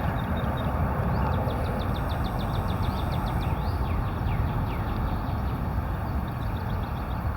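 A songbird calling: a fast trill of short falling notes, about ten a second, starting about a second in, followed by a few slower falling whistles. Under it runs a steady low rumble.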